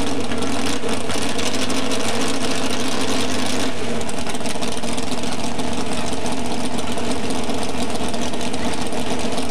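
Pro street four-wheel-drive pulling truck's engine idling steadily and loud while hooked to the pulling sled, its deep rumble thinning slightly about four seconds in.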